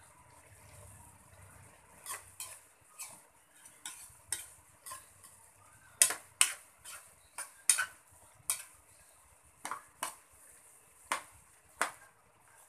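Metal spatula scraping and knocking against a wok while stirring jackfruit and anchovies in coconut milk. Sharp, irregular scrapes start about two seconds in, over a steady hiss.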